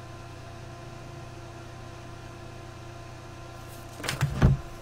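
Steady low electrical hum. About four seconds in it is broken by a quick cluster of sharp clicks and a loud low thump.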